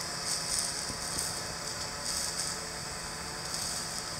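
Aeryon SkyRanger quadcopter hovering, its rotors giving a steady hum under a high, wavering hiss of water spray from the simulated heavy rain.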